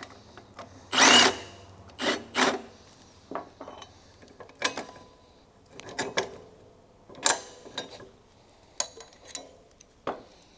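A cordless half-inch impact runs in a short burst about a second in, then two shorter bursts, backing out the seed boot bolt while a wrench holds the nut. After that come scattered metal clanks and knocks as the worn seed boot is worked loose from the opener arm.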